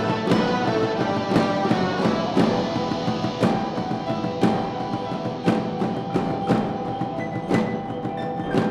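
Wind ensemble playing a Christmas song live: sustained wind chords over a steady percussion beat, with a sharp strike about once a second.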